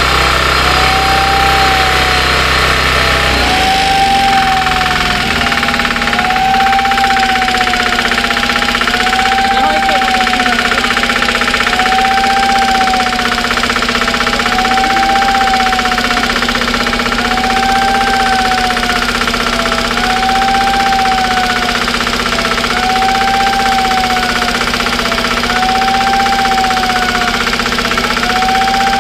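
A warning siren wailing up and down about once every second and a half, over the steady running of a heavy crane's engine as it lifts a derailed railway coach.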